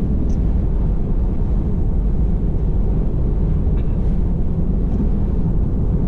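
Steady low rumble of tyre and wind noise heard inside a Tesla Model 3's cabin while driving at road speed through gusty wind, with no engine note.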